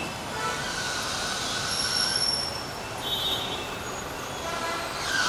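Street traffic noise with several high-pitched squeals, each lasting about a second, one after another.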